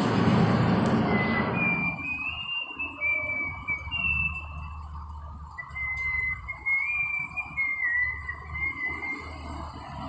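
Rock-crushing plant machinery running with a low steady hum. A loud rush of noise fills the first two seconds. A thin, wavering high-pitched tone comes and goes over it twice.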